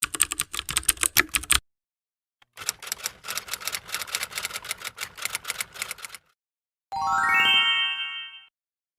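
Sound-effect clips: two runs of rapid keyboard typing clicks, a short one and then a longer one of about three and a half seconds, followed near the end by a quick rising run of chiming notes.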